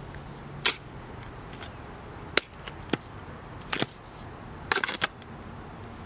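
A shovel digging in soil. It gives a series of short, sharp strikes and scrapes, about one a second, some in quick pairs.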